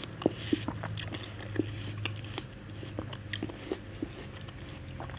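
Close-miked watermelon eating: wet crunchy bites and chewing, a string of short irregular clicks and crunches.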